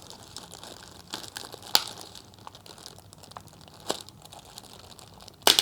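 Plastic wrapping around a new keyboard crinkling as it is handled, with scattered sharp crackles and a louder rustle near the end.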